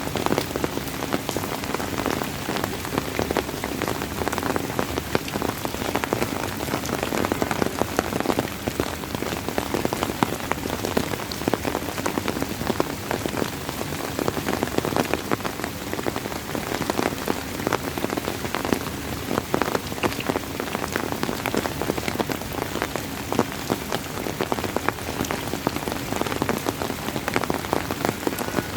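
Steady rain falling and pattering on a surface, many close drop impacts ticking over a constant hiss.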